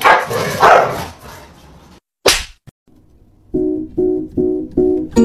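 A cat and a dog scuffling, with two loud noisy outbursts in the first second. After a short gap comes a quick whoosh, then plucked-string music begins with a note repeated about twice a second.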